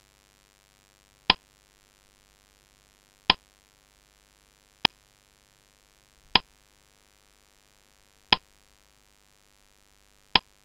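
Countdown timer sound effect: six short, sharp plops, one about every two seconds, over near silence.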